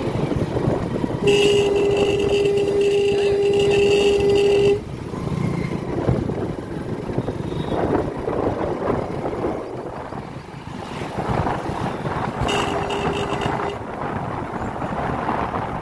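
Traffic noise from a moving motorcycle, with its engine and road noise throughout. A vehicle horn sounds one steady held note for about three and a half seconds, starting about a second in. It sounds again briefly, for about a second, near the end.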